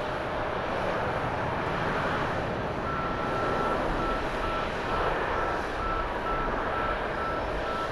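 Steady jet engine noise of an Airbus A350 rolling along the runway. About three seconds in a high beeping starts: one longer beep, then short beeps about two to three a second.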